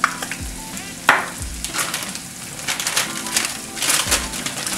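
Ground sausage sizzling and crackling as it browns in a frying pan, with two sharp clicks about a second apart.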